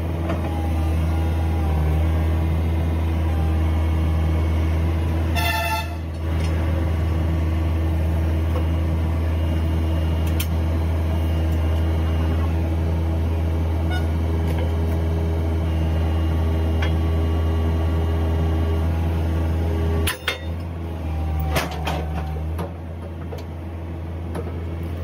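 Engine idling with a steady low hum throughout. A brief high-pitched toot sounds about five seconds in, and a few sharp knocks come near the end.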